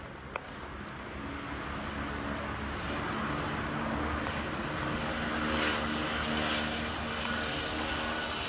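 A motor vehicle's engine hum with road noise, growing louder from about a second in, loudest around six seconds in, then easing off as it passes.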